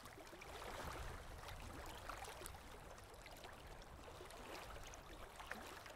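Near silence: a faint, steady hiss with no distinct sound in it.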